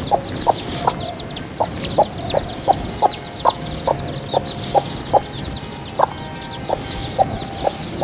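A mother hen clucking in short, regular clucks about twice a second, while her chicks peep continuously in high, quick cheeps that fall in pitch.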